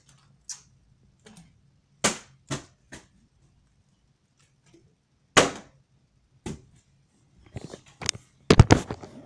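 A string of sharp knocks and thuds a second or more apart: plastic water bottles being flipped and landing on the floor. Near the end comes a quicker run of louder knocks and bumps.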